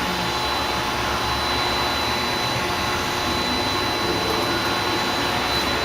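Tsugami BS-20BII CNC Swiss lathe with its sub-spindle slide jogging along the Z axis: a steady whirring drone from the servo drive and machine, with a thin high whine running through it.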